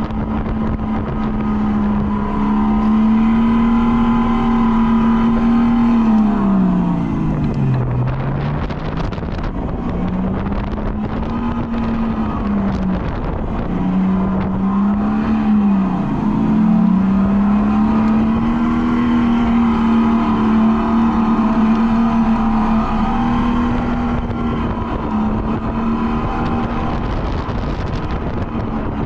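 Electric go-kart motor whining steadily at speed. About seven seconds in the whine swoops down to half its pitch and back up as the kart slows and picks up again, then wavers up and down a few times before it settles.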